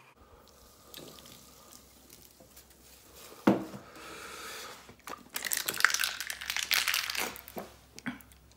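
Thin plastic soda bottle crinkling as it is gripped and squeezed. There is one sharp crackle about three and a half seconds in, then a run of crinkling and crackling through the second half.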